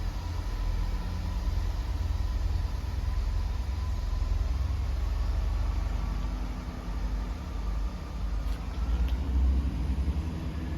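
Class 166 diesel multiple unit pulling out of the station: a steady low engine rumble with a faint whine that rises slightly after about six seconds.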